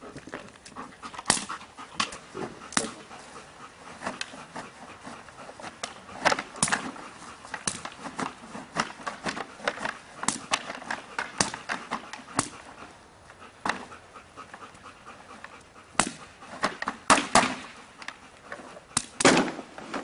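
A Belgian Malinois panting, with sharp clicks and knocks scattered throughout and a louder cluster of them near the end.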